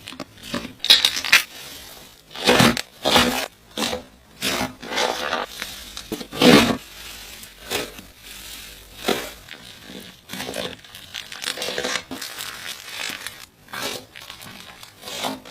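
Slime being handled and squeezed, giving an irregular run of short squishing sounds, a few much louder than the rest.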